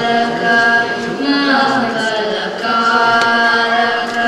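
Two children's voices singing a Ganesha bhajan together, holding long, steady notes that slide from one pitch to the next.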